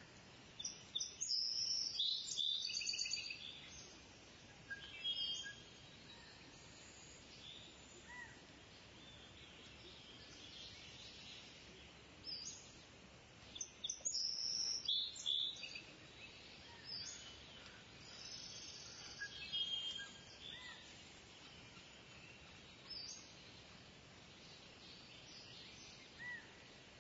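Birds chirping and calling in short bursts of high notes, busiest in the first few seconds and again around the middle, over a faint steady background hiss.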